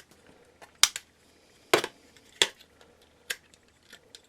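About half a dozen sharp small clicks and taps, spaced irregularly, from handling an opened plastic thermometer switch plate and its button-cell battery. The battery is corroded, which is why the plate is dead.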